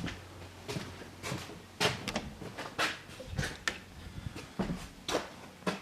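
A series of irregular short clicks and knocks, about two a second, like small objects being handled, over a faint low hum.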